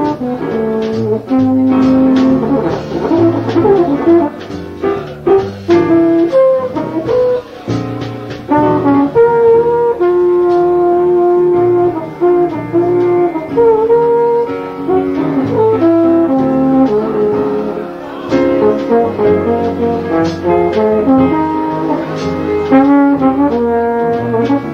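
Jazz slide trombone playing a slow ballad melody in long held and moving notes, backed by a piano trio.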